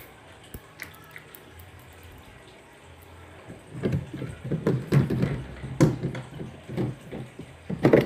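Plastic back cover of a twin-tub washing machine being handled and worked loose. There are a few faint clicks at first, then from about halfway a run of irregular knocks and rattles, with a sharp knock near the end.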